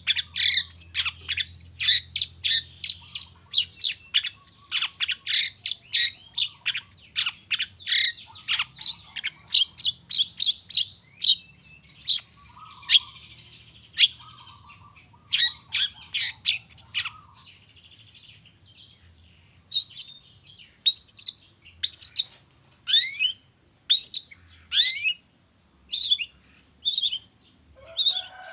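Long-tailed shrike (cendet) singing. It opens with a fast run of sharp, high repeated notes, about three or four a second, turns softer and more varied about halfway through, and then gives louder single notes about one a second, several sliding down in pitch.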